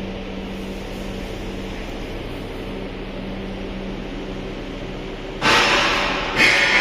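Copper wire granulator running with a steady hum. About five and a half seconds in, a much louder sound cuts in suddenly, and again about a second later.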